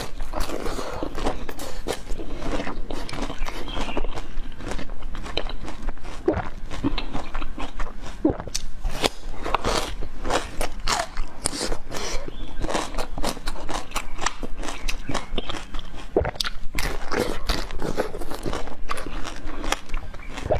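Close-miked eating: a person biting, crunching and chewing food, with a dense run of irregular crackling clicks.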